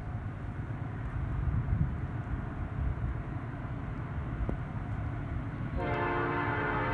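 A low steady rumble, then about six seconds in an approaching Norfolk Southern GE Dash 9 freight locomotive begins sounding its multi-note air horn, a chord of several steady tones, as it nears the road crossing.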